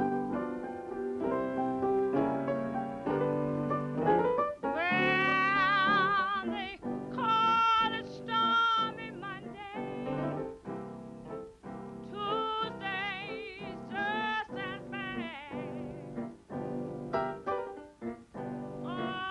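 A woman singing slow held notes with wide vibrato over piano chords. The voice comes in about four and a half seconds in, after a few seconds of piano alone.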